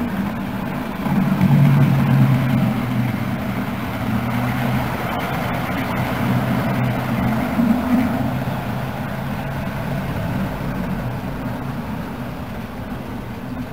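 Model railway train running along the layout close by: the steady hum of its electric motor and the rumble of its wheels on the rails. It gets louder about a second in, runs steadily, and eases off toward the end.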